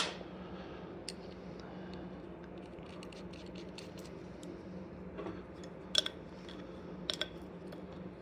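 Light clicks and taps of small metal parts and hand tools being handled: a sharp click right at the start, scattered faint ticks, and two pairs of sharper clicks about six and seven seconds in, over a steady low hum.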